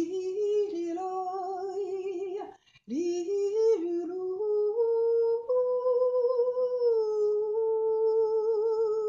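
A woman's solo voice singing slow, wordless held notes with vibrato. After a short breath about three seconds in, she rises and holds one long note that dips slightly in pitch about seven seconds in.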